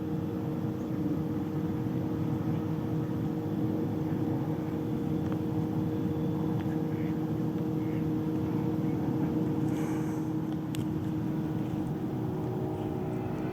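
A steady mechanical drone: a low rumble with a constant hum, like an engine or motor running.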